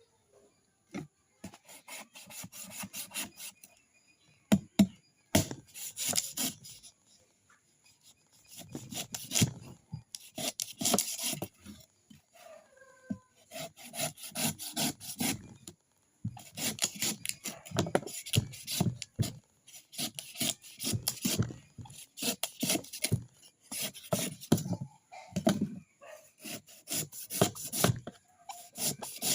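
Coconut being scraped by hand: quick rasping strokes in runs of a few seconds, with short pauses between runs.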